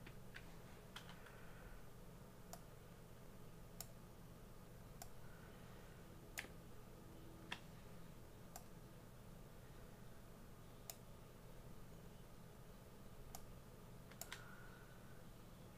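Faint computer mouse clicks, about a dozen at irregular intervals, over a low steady hum.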